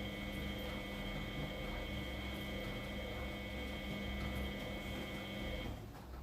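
Miele W833 washing machine running with a steady motor whine over a low rumble, cutting out near the end as the drum pauses.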